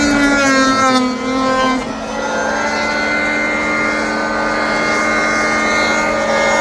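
Electric hand planer running with a steady motor whine. Its pitch sags about a second in and again near two seconds as the cutter takes the wood, then holds level.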